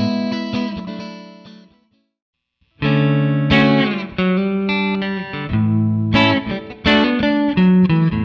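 Fender American Performer Stratocaster electric guitar played clean through a Line 6 Floor POD Plus modelling a Fender Twin Reverb amp. A chord rings out and fades to silence, then picked notes and chords start again about three seconds in.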